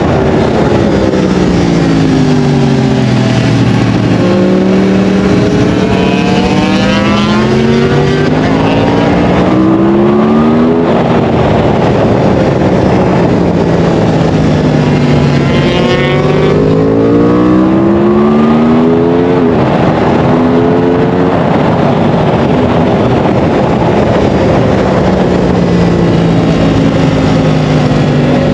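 Track motorcycle's engine at racing pace, heard from an onboard camera: revs fall as it brakes and downshifts into corners, then climb again through quick upshifts, over heavy wind rush. The pitch drops over the first few seconds, climbs in short steps from about four to eleven seconds, drops again, climbs again around fifteen to nineteen seconds, then falls once more.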